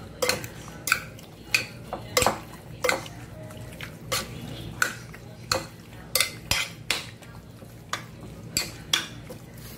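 A metal utensil stirring raw chicken pieces in marinade in a cut-glass bowl: a steady run of clinks of metal against glass, about three every two seconds.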